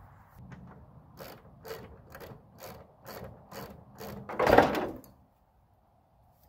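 Regular mechanical clicking, about two strokes a second for some three seconds, followed by a single louder noise lasting under a second.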